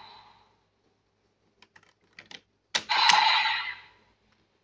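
Light plastic clicks of a toy Raise Buckle being pulled out and slotted into a DX Kamen Rider Geats belt. A sharp click about three quarters of the way in sets off a loud electronic sound effect from the belt's speaker, lasting about a second.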